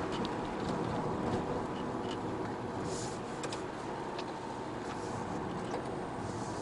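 Car driving along a narrow, rough country lane, heard from inside the cabin: steady tyre and engine noise with scattered light ticks. A windscreen wiper sweeps across the wet glass once, about three seconds in.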